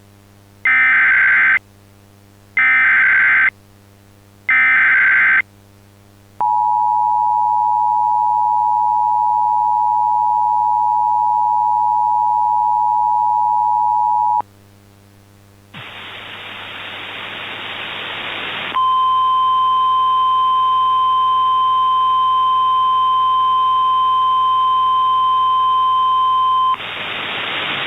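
Emergency Alert System activation for a flash flood warning: three short bursts of warbling SAME header data tones, then the steady two-tone attention signal for about eight seconds. Then a rising wash of radio static and a steady single alert tone over the static, typical of NOAA Weather Radio's 1050 Hz warning tone, with a low hum underneath throughout.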